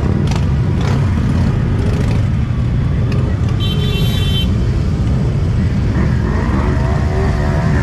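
A procession of motorcycles, mostly big cruisers, riding slowly past with their engines running in a loud, steady, deep rumble. A brief high-pitched tone sounds about halfway through.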